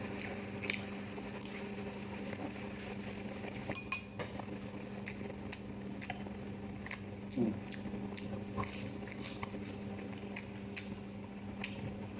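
Close-miked eating sounds: utensils clicking and clinking against a dish, with scattered small sharp ticks, over a faint steady hum.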